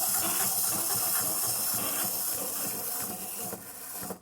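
Clockwork spring motor of a wind-up walking Pikachu toy whirring as it runs, a fast steady rattling buzz that eases slightly and stops abruptly near the end as the spring runs down.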